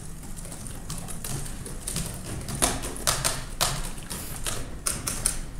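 Irregular clicks and taps of laptop keyboards as reporters type, bunched in the second half, over a low steady room hum.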